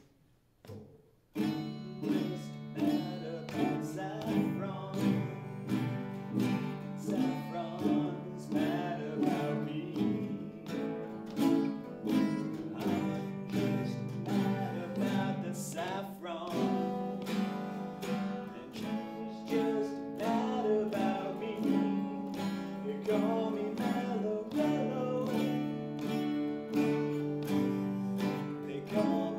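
A trio of acoustic guitars starts together about a second and a half in, after a near-quiet opening, then plays strummed and picked chords in a steady rhythm.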